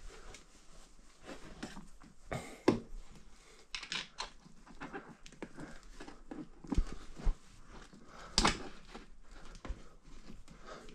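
Scattered clicks and light knocks of a RockShox Deluxe Select+ rear shock and its mounting bolts being handled and worked into position in a mountain-bike frame. The sharpest knocks come about two and a half and eight and a half seconds in.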